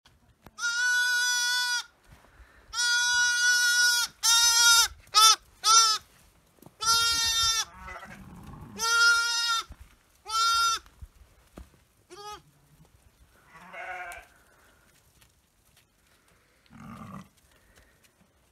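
A goat bleating: about nine high, steady-pitched calls in the first dozen seconds, some held for over a second and others short and quick, followed by two fainter, lower calls near the end.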